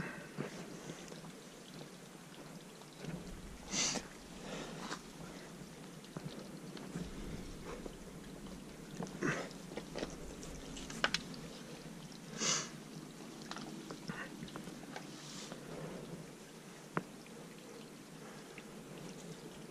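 A climber scrambling on bare rock: scattered short scrapes and scuffs of hands and boots against the stone, over a low, steady background hiss.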